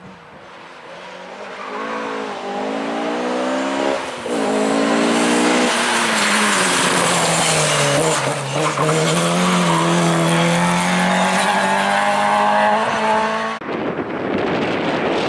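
Ford Escort Mk2 rally car's engine at high revs, coming closer and rising and dropping in pitch through several gear changes, then loud and steady as the car slides through a corner on a loose surface. Near the end the sound cuts abruptly to a fainter, noisier car in the distance.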